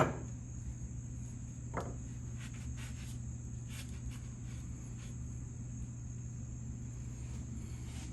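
Metal ratchet parts knocked and handled during disassembly: one sharp knock at the start, a softer one about two seconds in, then a few light clicks, over a steady low hum.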